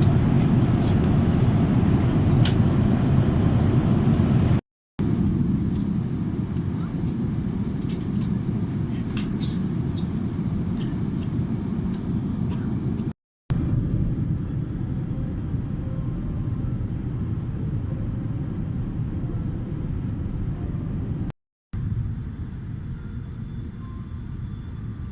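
Steady low rumble of cabin noise inside a Boeing 787-10 airliner, split by three brief cuts to silence and a little quieter after the last one.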